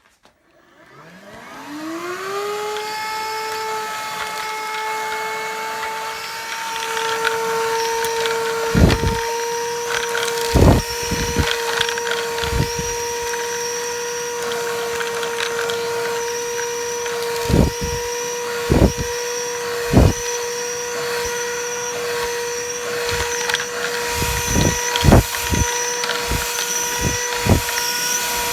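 Cordless handheld car vacuum switching on, its motor spinning up with a rising whine to a steady high hum. From about eight seconds in, it keeps running through repeated sharp knocks and rattles.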